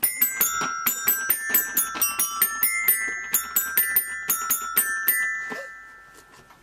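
Child's toy xylophone with coloured metal bars struck quickly and unevenly, about six notes a second. The notes stop about five seconds in and the last ones ring out and fade.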